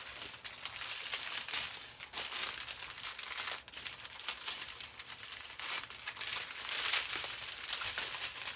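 Plastic packaging crinkling and rustling as it is handled, a dense run of small crackles with louder patches about two seconds in and again near six and seven seconds.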